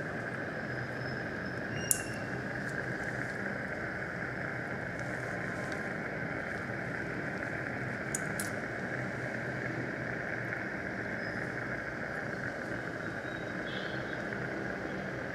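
Steady hiss of a dental suction tip drawing air and fluid from the mouth, with two short sharp clicks about 2 seconds and 8 seconds in.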